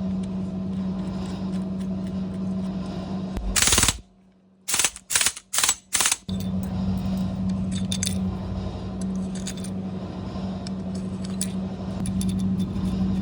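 Steady low machine hum with scattered light metallic clinks. Just before four seconds in, a loud hissing burst cuts off into near silence, then four short sharp bursts follow before the hum returns.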